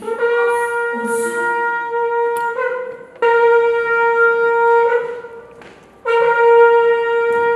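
A wind instrument sounding three long held notes on one steady pitch, with short breaks between them.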